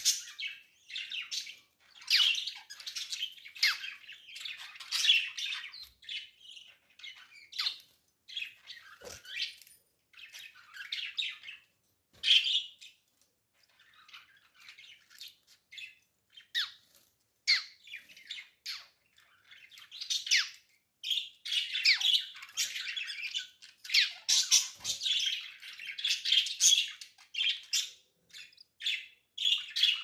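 Budgies chirping and squawking in short calls, on and off. The calling thins out for a few seconds around the middle and is busiest in the last third.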